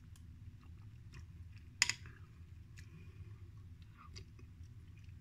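Quiet eating of soup from a metal spoon: soft sipping and chewing, with one sharp click a little under two seconds in and a few fainter clicks, over a low steady hum.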